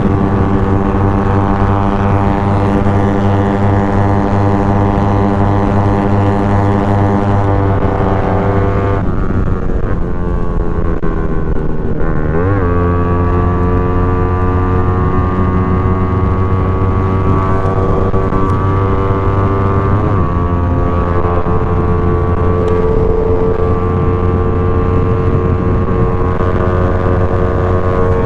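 Motorcycle engine droning at a steady road speed, heard from the bike itself. Its pitch sags a little after a quarter of the way in, then wobbles and settles again near the middle, as the throttle eases and reopens.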